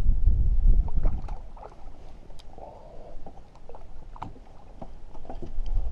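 Wind buffeting the microphone, easing off about a second in, then small water splashes and clicks as a hooked trout splashes at the surface close to the bank.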